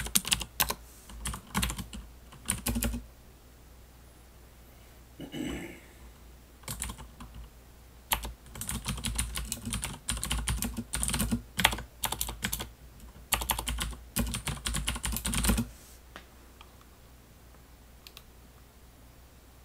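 Typing on a Das Keyboard mechanical keyboard: bursts of rapid key clicks with short pauses between, stopping about three seconds before the end.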